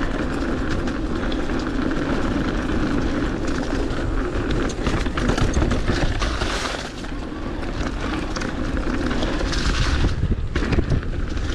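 Mountain bike riding fast downhill on a leaf-covered dirt trail: a steady rumble of tyres on dirt and dry leaves, with the bike rattling and knocking over bumps. A brief lull comes near the end.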